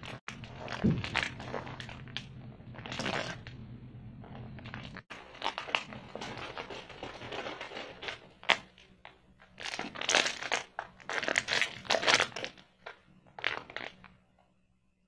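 Crinkly plastic snack wrappers being handled, with irregular crackles and rustles that come in flurries, busiest about two-thirds of the way through and dying away near the end.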